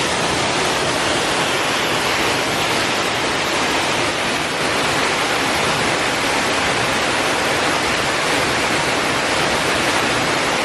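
Waterfall falling into a pool: a steady, loud rush of water.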